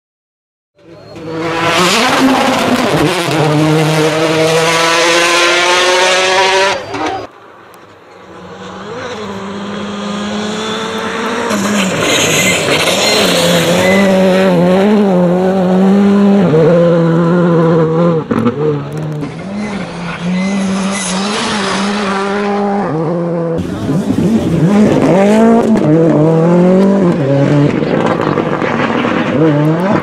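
Rally cars being driven hard on gravel stages in several clips cut one after another: engines revving up and down in pitch, with abrupt changes at the edits and a brief drop in loudness near the seven-second mark.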